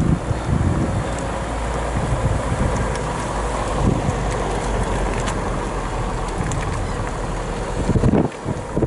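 A car driving slowly, heard from inside: a steady low engine and road rumble, with wind buffeting the microphone near the end.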